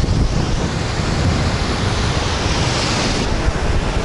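Sea waves breaking and washing ashore, with wind rumbling on the microphone. A louder hissing wash rises about two and a half seconds in and ends just past three seconds.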